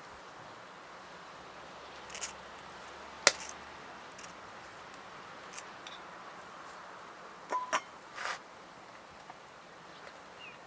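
A few sharp clicks and light clinks over a steady low hiss, the loudest about three seconds in and a quick cluster of them near the end.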